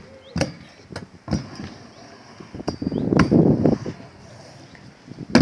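Stunt scooter on a skatepark ramp: sharp clacks of the wheels and deck striking the ramp and its metal coping, with a rumble of the small wheels rolling across the ramp surface about three seconds in and a loud clack near the end.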